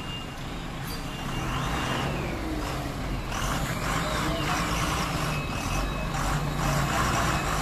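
Tata heavy truck's diesel engine running as the truck manoeuvres at low speed, growing louder about three seconds in. A short high tone sweeps up and back down twice over the engine.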